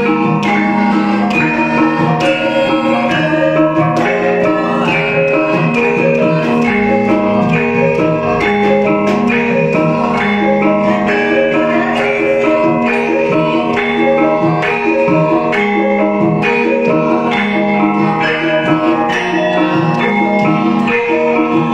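Javanese gamelan ensemble playing a Banyumas-style gendhing: bronze-keyed metallophones struck with mallets in a steady pulse over held, ringing gong and pot-gong tones.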